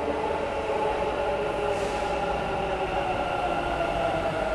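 Bengaluru Namma Metro train pulling in alongside the platform: a steady electric whine of several tones over the running rumble of the train.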